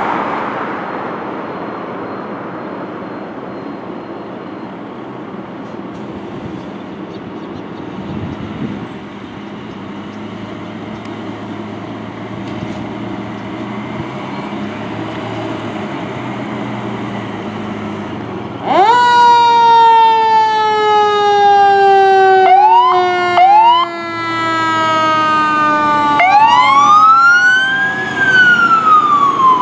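Fire truck's diesel engine running steadily, then about two-thirds of the way through its siren comes on suddenly and loud: the pitch shoots up and slides slowly down, with several quick rising sweeps and another climb near the end.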